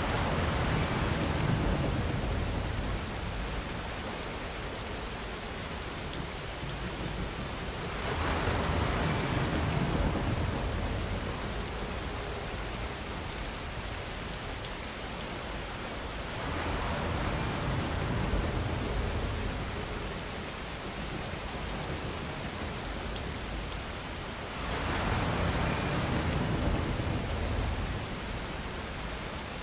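Steady rain falling, a continuous hiss, with a louder, deeper swell about every eight seconds, four times.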